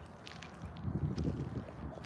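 Wind buffeting the phone's microphone in uneven low gusts, with a few light crunching footsteps on a gravel path.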